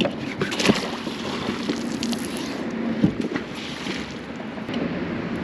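Wet magnet-fishing rope being hauled hand over hand into a kayak, with water sloshing and a few light knocks.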